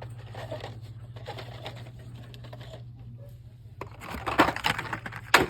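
Plastic blister packs of Hot Wheels cars rustling and clacking as they are handled, loudest in the last second and a half, over a steady low hum.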